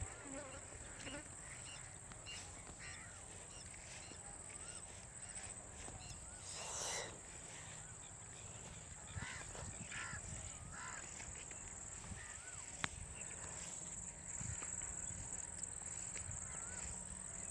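Outdoor rural ambience: a steady high-pitched insect drone with scattered bird chirps and calls, and one louder, harsher sound about seven seconds in.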